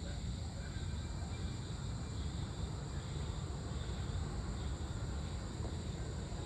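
Evening outdoor ambience: a steady low rumble, as of wind on the microphone or distant traffic, under a constant high drone of insects such as crickets, with a few faint short bird chirps.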